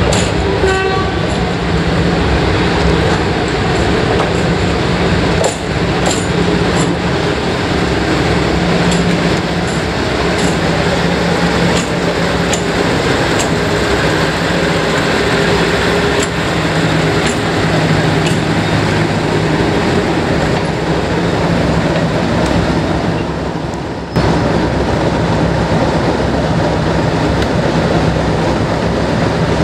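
Class 56 diesel-electric locomotive's Ruston-Paxman V16 engine running with a deep, steady note as the locomotive moves slowly along the platform, with a few sharp wheel-on-rail clicks.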